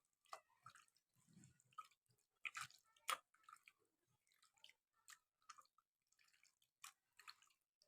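Faint, scattered wet squelches and clicks of hands kneading pieces of chicken breast in a yogurt-based spice marinade.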